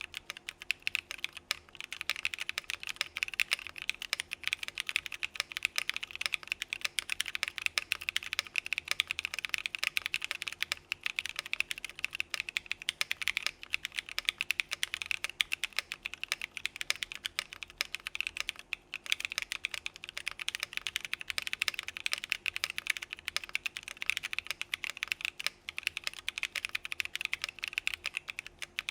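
Fast continuous typing on a mechanical keyboard fitted with KTT Macaron Orange tactile switches: a dense stream of keystroke clacks with only brief pauses.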